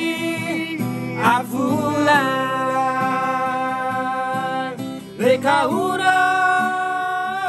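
A man singing with long held notes over an acoustic guitar.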